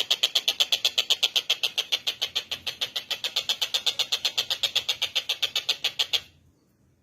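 Tengkek buto kingfisher giving a fast, rattling chatter of sharp, high notes, about ten a second, that stops abruptly about six seconds in.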